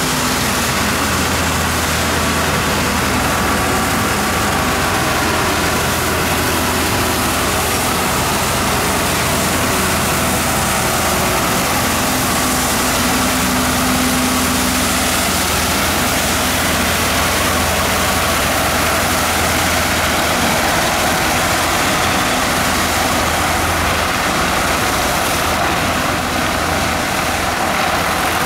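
Street sweeper truck working along the curb: its engine runs steadily under a continuous rush from the rotating sweeper brooms on the road. The engine tone is strongest about halfway through as the truck passes close, and the sound eases slightly near the end as it moves away.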